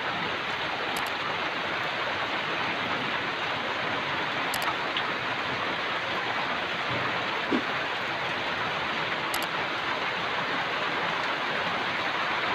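Steady rain pouring onto grass and banana leaves, an even, unbroken hiss.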